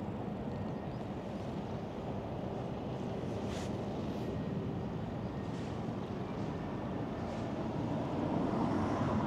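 Steady low rumble of road traffic, swelling near the end as a vehicle passes.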